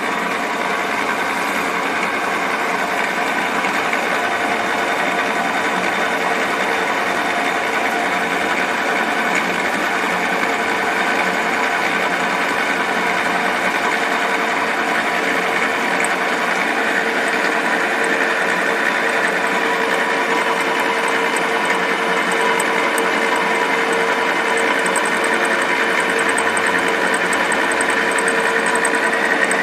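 Milling machine running steadily with a constant whine, its end mill making a pass to bore out the worn guide bore of a brake caliper.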